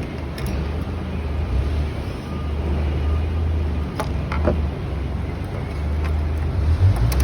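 Steady low rumble with a few light clicks and taps scattered through it, from small parts being handled.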